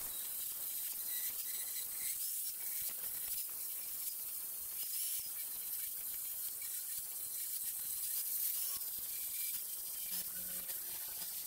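Handheld angle grinder grinding down weld beads on a steel square-tube grille frame: a steady, mostly high-pitched grinding noise.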